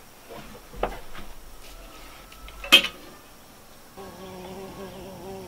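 Tableware clinking on a wooden table: a light click about a second in and a sharp, louder clink about halfway through. In the last second and a half a steady, slightly wavering buzz starts abruptly, as of a fly near the microphone, while a fork works meat out of a plastic container.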